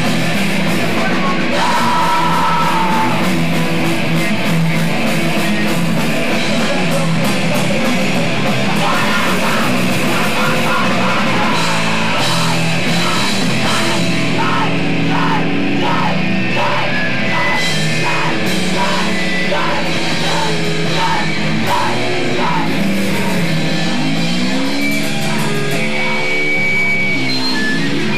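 A live rock band playing loud distorted electric guitar, bass guitar and drums. Bending, gliding guitar notes come in near the end.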